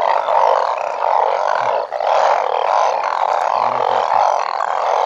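Loud, steady chorus of banded bullfrogs calling, a dense unbroken din.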